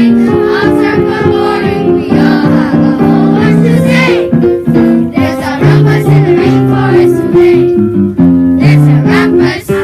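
Song music: an upbeat accompaniment of held keyboard notes with singing voices over it.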